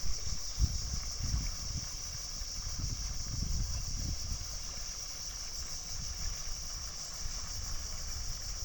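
Wind buffeting the microphone in uneven low gusts over a steady high hiss.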